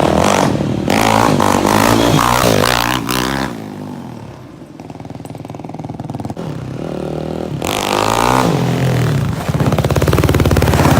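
An engine revving up and down, easing off about four seconds in and revving again near the end, settling into a fast even pulsing.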